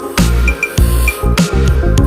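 Electronic background music with a heavy, pulsing bass beat.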